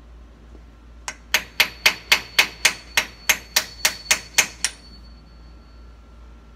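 A small hammer strikes an aluminium punch in a quick, even run of about fourteen blows, roughly four a second, driving the gland of a skid steer's hydraulic lift cylinder down into the cylinder. A faint metallic ring hangs on briefly after the last blow.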